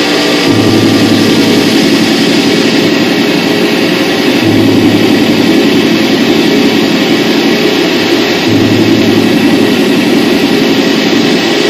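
Loud live electronic noise drone: a dense, steady wash of distorted sound, thickest in the low-middle range. A deep low hum swells in and drops out about every four seconds.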